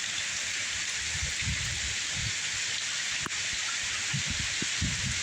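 Heavy rain pouring down in a torrential downpour, a steady hiss throughout. Low rumbles come and go underneath, mostly in the second half, and there is one brief click a little past halfway.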